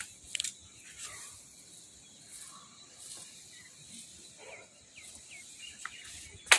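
Faint outdoor ambience with a few scattered short chirps and clicks.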